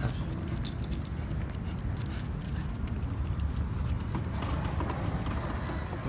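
Metal jingling, a short cluster of light clinks about a second in, over a steady low rumble.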